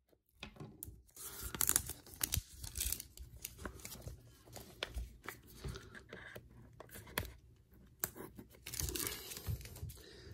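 Clear plastic shrink-wrap being slit and peeled off a small cardboard box: irregular crinkling and tearing with sharp crackles, starting about half a second in.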